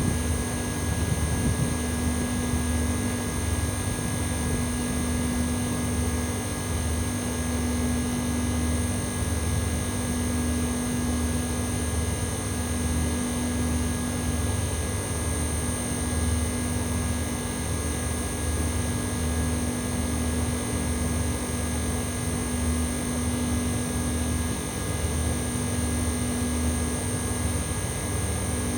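Old Mitsubishi Electric Mr.SLIM commercial air conditioner outdoor unit, thought to be a 10-horsepower model, running steadily in cooling mode. It gives a high-pitched metallic whine combined with a distinctive mid tone over a low, pulsing throb.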